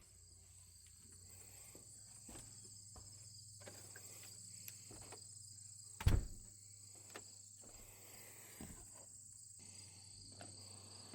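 Insects trilling steadily in a high-pitched chorus, over a low steady hum. A few faint clicks sound, and one sharp thump about six seconds in is the loudest thing.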